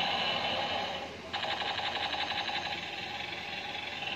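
Battery-operated transforming army-tank toy playing electronic sound effects from its built-in sound unit as it changes into a robot. One effect fades just after a second in and a new, rapidly pulsing one takes over.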